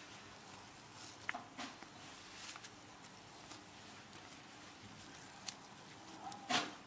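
Hands squeezing and patting a damp sabudana (soaked tapioca pearl, potato and peanut) mixture into balls over a steel bowl: faint, scattered soft pats and clicks, the loudest one near the end.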